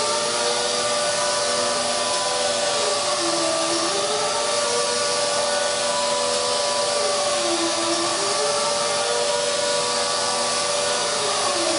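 Air-powered random orbital sander running continuously under test, with a steady hiss of exhaust air and a running whine. One pitch in the sound dips and climbs back about every four seconds.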